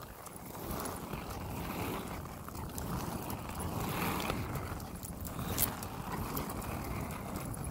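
Footsteps of a person and a Cane Corso walking on pavement on a leash, with rumbling handling and wind noise on the hand-held microphone and a sharp click about five and a half seconds in.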